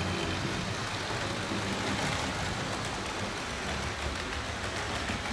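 Tri-ang Hornby 00-gauge model steam locomotive and its coaches running on the track: a steady electric-motor hum with wheel rumble.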